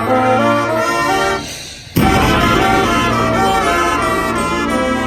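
Band music led by brass: sustained horn notes moving in steps, a brief softening, then a sudden loud full-ensemble entrance about two seconds in that holds on.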